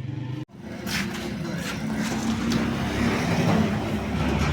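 A motor vehicle engine running close by with a steady low hum, heard over street noise, after a brief dropout near the start.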